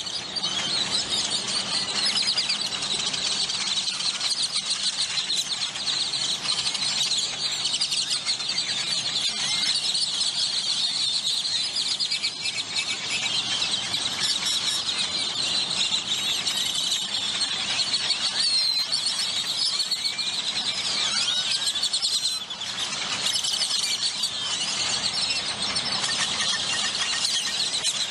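A large flock of great-tailed grackles calling all at once: a dense, unbroken chorus of overlapping squeals, whistles and chatter.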